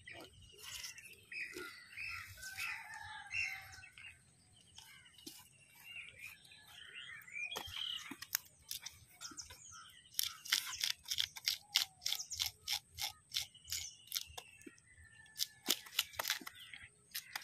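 Knife strokes scraping and cutting fish on a wooden chopping block, a fast run of short sharp scraping clicks building up in the second half. Birds chirp faintly in the first few seconds.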